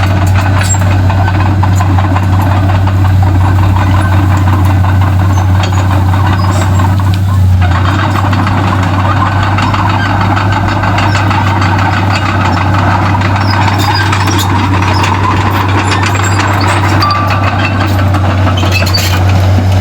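Komatsu D31P crawler bulldozer's diesel engine running steadily, with scattered clicks and knocks over it.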